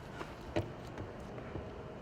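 Footsteps: a few sharp steps about every half second, over a faint steady hum.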